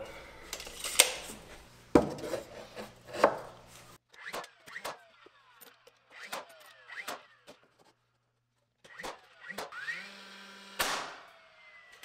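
Light knocks and clicks of wooden studs being handled and set into a wall frame on a concrete floor. Near the end a DeWalt battery-powered framing nailer whirs briefly and fires a nail with one sharp bang.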